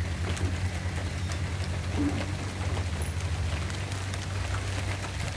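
Steady rain falling on trees and ground: an even hiss dotted with the ticks of single drops, over a low steady rumble.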